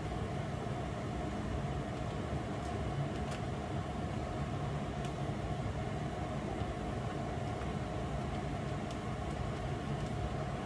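Steady hum of a running fan, with a few faint soft ticks now and then.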